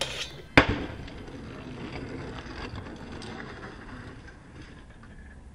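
A stunt scooter hits the ground with one sharp clack about half a second in, then its wheels roll on with a steady rumble that slowly fades.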